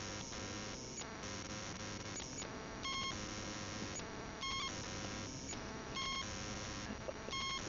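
Ghost-hunting electronics running: a steady hiss of static that cuts out briefly every second or so, with about four short high beeps spaced one to two seconds apart.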